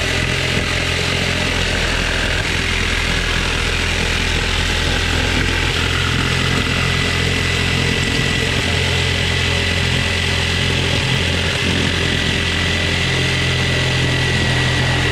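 Corded electric saw running steadily as it cuts through weathered wooden wall boards, a constant motor hum with a thin whine over it.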